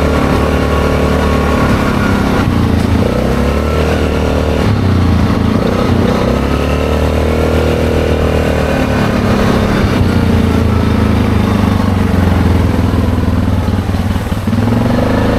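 ATV engine running steadily at speed, its pitch shifting up and down a few times as the throttle changes.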